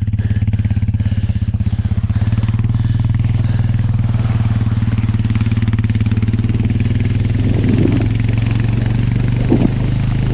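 ATV engine running steadily at a fairly even speed, its fast pulsing exhaust note clear throughout.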